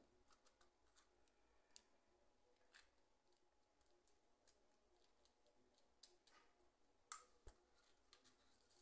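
Near silence with a handful of faint ticks and taps, the clearest about seven seconds in, from a silicone pastry brush dabbing egg-yolk glaze onto dough balls on aluminium baking trays.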